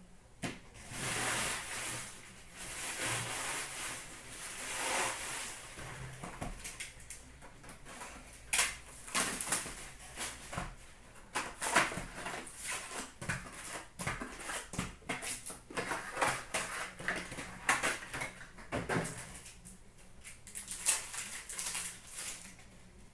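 Upper Deck SP Authentic hockey card box being opened and its foil packs handled: rustling and crinkling of wrapper and cardboard, with many small clicks and taps through the middle.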